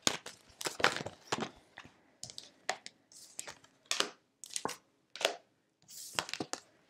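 Tarot cards being handled: shuffled in the hands and laid down on a table, a run of short, irregular flicks, slaps and slides.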